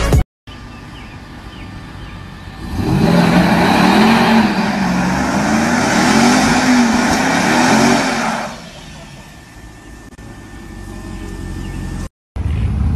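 Ram 1500 TRX's supercharged 6.2-liter V8 revving hard in a burnout, its pitch rising and falling again and again, with the rear tires spinning and squealing against the pavement. The loud stretch runs from about three seconds in to about eight and a half seconds, then drops back to a lower engine sound.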